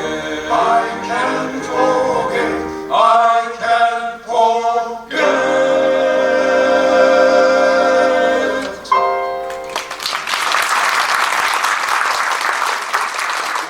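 Male vocal quartet singing the closing phrases in close harmony over piano and electric bass, ending on a long held chord about nine seconds in. Audience applause follows from about ten seconds in.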